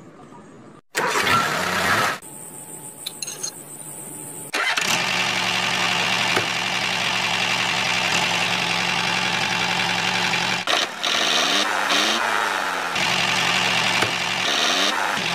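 A small engine, of the kind built into a DIY mini tractor model, in short chopped segments, then running steadily from about four and a half seconds in.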